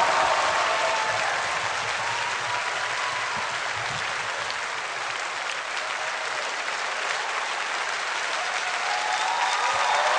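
Large studio audience applauding steadily, easing off slightly in the middle and swelling again near the end.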